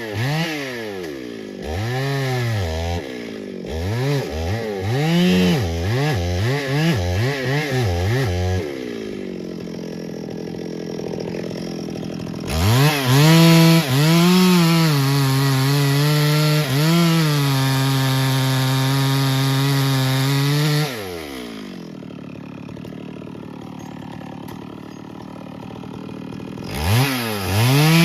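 Two-stroke chainsaw revved up and down in quick repeated bursts, then held at high revs for about eight seconds as it cuts wood. It then drops back to idle and revs up again near the end.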